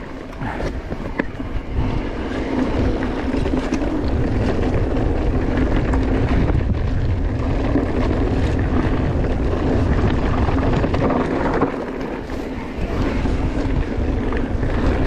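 Mountain bike descending a rough dirt trail: steady wind rush on the bike-mounted or helmet camera's microphone, with the bike clattering over rocks and roots, easing off briefly about twelve seconds in.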